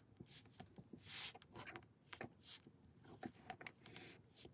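Faint handling sounds of a small pouch made of thick clear tape and filled with glitter and beads being pressed between the fingers: scattered soft crinkles and ticks, with a short, slightly longer rustle about a second in.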